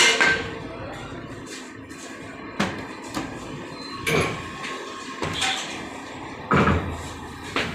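Tyre-shop work on a car wheel: a series of sharp knocks and clanks, about six impacts irregularly spaced a second or so apart.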